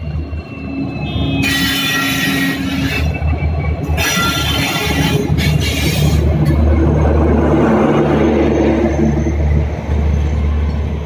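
WDP4D diesel locomotive and its LHB coaches passing close by at speed: a steady low engine hum with the rumble of wheels on the rails. Two loud, shrill high-pitched stretches sound in the first half.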